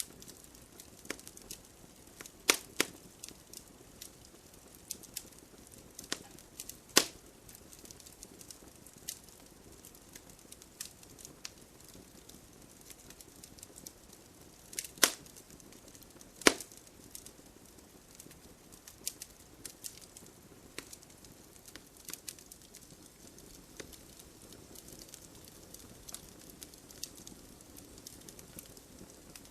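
Wood campfire crackling: irregular sharp pops and snaps over a soft hiss, with a few louder pops.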